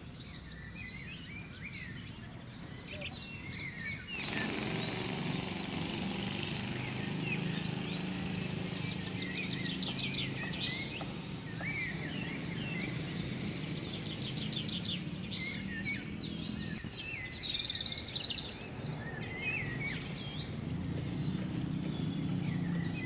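Small birds chirping and trilling over a steady low outdoor hum. The hum and general background grow louder about four seconds in.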